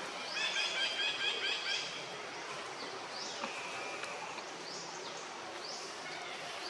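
Forest ambience full of high animal chirps: a quick run of about eight short pitched chirps in the first two seconds, then falling and rising high calls repeating every second or so.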